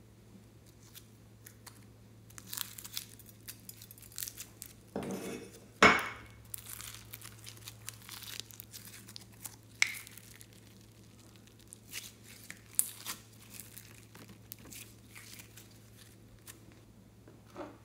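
Glitter-flake slime being scooped out and squeezed by hand, giving a run of crackly, crinkling clicks and sticky pops, with one much louder sharp knock about six seconds in.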